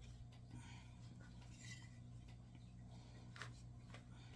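Near silence with a low steady hum, and faint soft scrapes and taps as a bench scraper cuts and pulls apart dough pieces on a silicone mat, one slightly sharper tap about three and a half seconds in.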